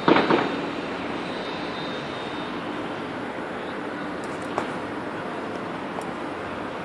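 A BMX bike being ridden through a flatland trick on pavement: a quick cluster of clicks and knocks at the start, then single sharp clicks about four and a half and six seconds in, over a steady background hiss.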